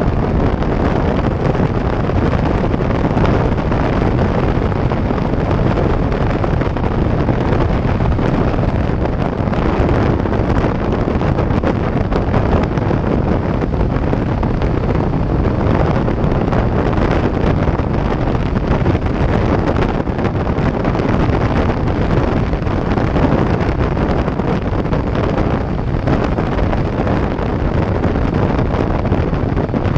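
Steady wind noise buffeting a GoPro's microphone on a Harley-Davidson motorcycle at highway speed, with the bike's V-twin engine and road noise running beneath it.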